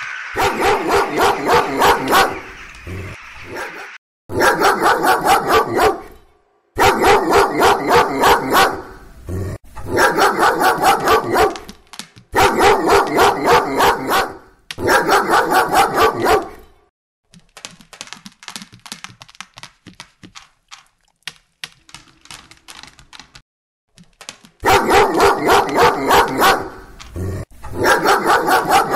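Dog barking rapidly, several barks a second, in bursts of about two seconds with short pauses between them. For several seconds past the middle the barking stops and only light clicking is heard, then the barking starts again.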